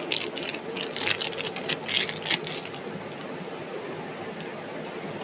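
Rustling and crackling of small parts and packaging being handled, a quick run of sharp crinkles that stops about halfway through, leaving a steady low room hum.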